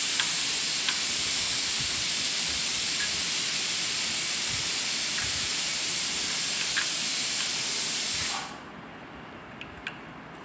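Steady hiss with a faint high steady tone that drops away suddenly a little over eight seconds in, over a few faint clicks from a screwdriver working a screw.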